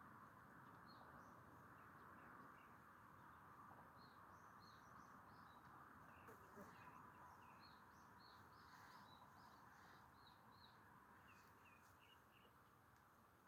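Faint outdoor quiet: small birds chirping in short, repeated notes over a steady low hiss.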